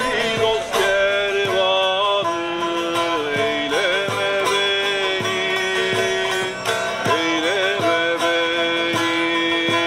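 A man singing while playing a bağlama (saz), a long-necked Turkish lute, with regular plucked strokes under a held, wavering voice.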